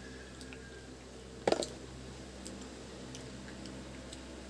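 Quiet handling noises of food being worked by hand: one sharp click about a second and a half in and a few light ticks, over a steady low hum.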